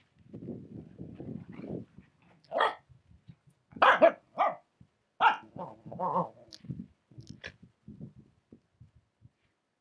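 Finnish Spitz dog barking in play: about five short, sharp barks between about two and a half and six and a half seconds in, after a low rumbling in the first two seconds.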